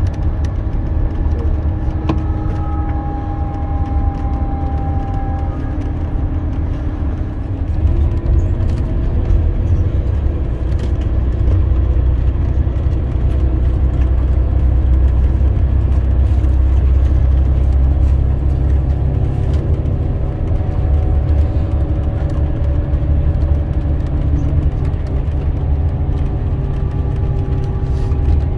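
Inside a Scania Caetano Levante 2 coach under way: a steady low drone of the diesel engine and road noise, with faint whining tones over it that step up in pitch about eight seconds in.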